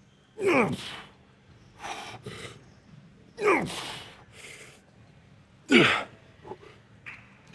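A man grunts loudly with effort on each rep of a set of machine dips, three times about two to three seconds apart, each grunt sliding steeply down in pitch and followed by a hard breath; a fourth begins at the very end.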